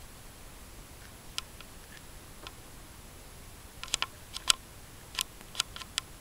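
Cat's claws scratching and picking at a window ledge: a few sharp clicks, then an irregular run of about ten quick clicks and scrapes from about four seconds in.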